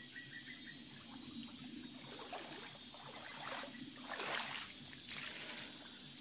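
Rubber boots wading through a shallow stream, each stride splashing water, with the loudest splashes about four seconds in.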